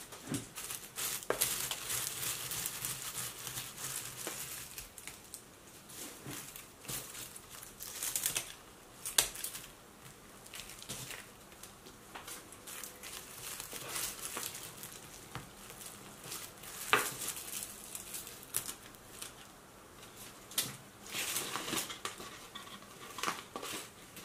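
Dry, crusty Hoya curtisii leaves and stems rustling and crinkling as hands sort through the pot, with scattered small clicks.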